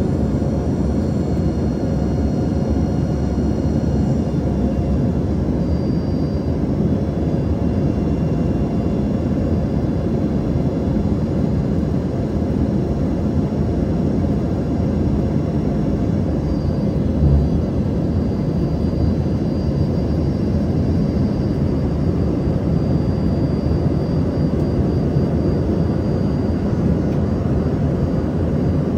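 Cabin noise aboard an Embraer ERJ-145 regional jet: a steady dense rumble and rush with high whining tones from its rear-mounted Rolls-Royce AE 3007 turbofans, the whine shifting a few times. One brief low thump about seventeen seconds in.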